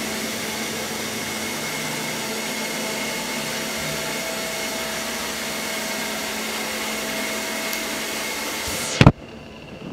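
ILIFE V5S robot vacuum running on a bare floor: a steady whirring hiss of its suction fan with a faint steady whine. It cuts off abruptly about nine seconds in with a sharp click.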